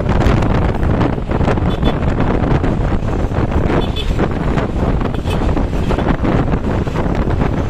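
Wind buffeting the microphone over the rumble of moving traffic, steady and loud throughout.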